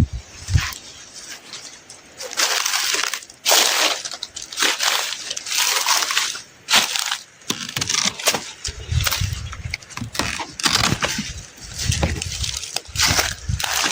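Yam leaves and stems being cut and snapped off by hand, giving irregular crunching, rustling bursts with a few low thumps.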